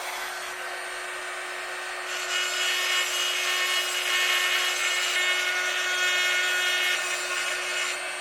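Proxxon IBS/E rotary tool running with a steady whine while a small diamond grinder grinds the inside of a thrust bearing to enlarge its bore. The grinding is louder from about two seconds in until near the end.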